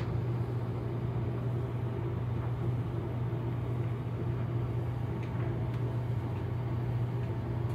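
Steady mechanical hum of a Black+Decker BCED26 compact electric dryer running under a heavy load of about 1,200 W, with the EcoFlow DELTA Pro 3 power station's cooling fan running beneath it.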